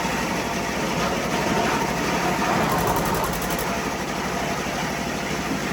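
Ice crushing machine running steadily, grinding block ice and sending the crushed ice up into a fishing boat's hold: a dense, even mechanical noise with no rhythm.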